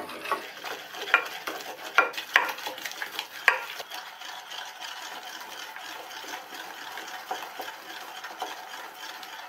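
A wooden mathu (churning stick) twirled in a stainless steel pot, mashing hot cooked amaranth greens into a paste: a steady wet churning and scraping, with a few sharp knocks in the first three seconds or so.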